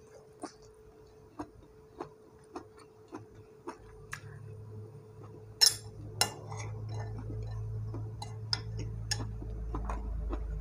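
Close-up eating sounds: chewing with small wet mouth clicks about every half-second. Halfway through, a metal spoon clinks sharply twice against a dish, the loudest sounds, while a low steady hum comes in and grows.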